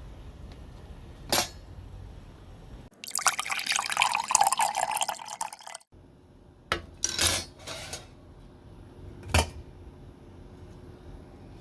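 Liquid being poured into a container for about three seconds, stopping abruptly, followed by a few knocks of containers being set down.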